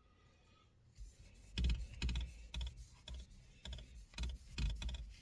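Cloth with degreaser rubbed over a leather steering wheel: after about a second of quiet, a quick irregular run of short scrubbing strokes.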